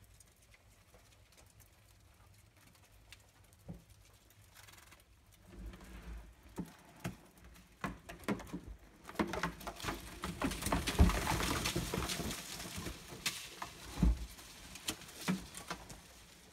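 Rustling with scattered taps and knocks as a tray of sprouted wheat is handled inside a plastic locust bin, faint at first and becoming dense and loudest about ten to thirteen seconds in, with a sharp knock near fourteen seconds.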